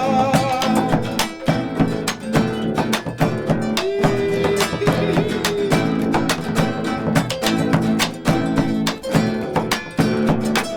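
Instrumental break of a chaya, an Argentine carnival folk song, played on strummed acoustic guitar in a brisk, steady rhythm. A held sung note fades out about a second in.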